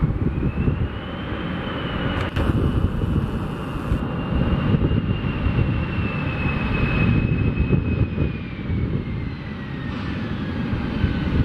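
Boeing 737-500's CFM56 jet engines running hard just after touchdown on a wet runway, over a dense low rumble. A high whine climbs in pitch within the first second or so, holds, then slides steadily down over the last few seconds as the engines spool down on the rollout.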